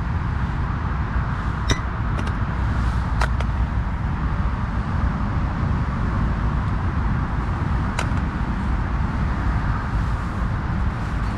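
Steady rumble of road traffic, with three sharp clicks: two in the first few seconds and one about eight seconds in.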